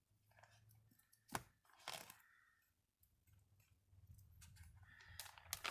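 Thin Bible pages being turned by hand: two sharp crackles about one and a half to two seconds in, and a few more quick crackles near the end, over a faint low room hum.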